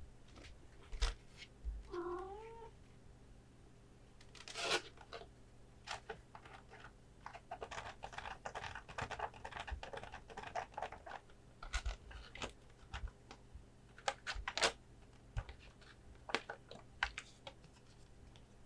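A house cat meows once, briefly, about two seconds in. Through the rest there are many sharp taps and clicks of hands handling cards and their packaging, coming in quick clusters.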